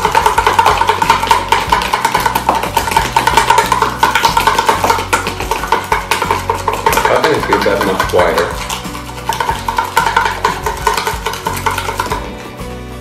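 Metal spoons rapidly clicking and scraping against plastic tubs as dalgona coffee is whipped by hand, over background music. The clicking thins out near the end.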